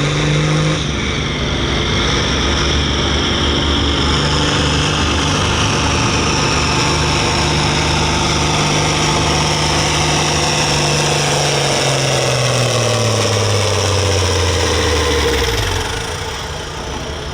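John Deere 4440's turbocharged six-cylinder diesel running hard under load on a pull, steady and loud. Over the last few seconds its engine speed falls away as it is pulled down, and the sound drops off near the end.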